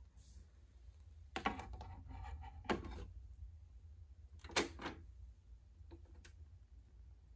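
Light mechanical clicks and knocks from a JVC QL-F320 direct-drive turntable: a handful of knocks with a brief rustle in the first three seconds, as a record is set on the platter, then a sharp click and knock about four and a half seconds in as the front-panel button is pressed, followed by a few faint ticks, over a steady low hum.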